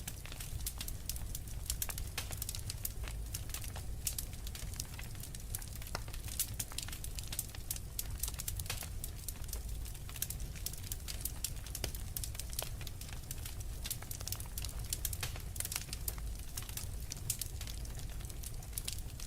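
Wood fire burning in a fireplace: constant irregular crackling and popping over a low steady rumble.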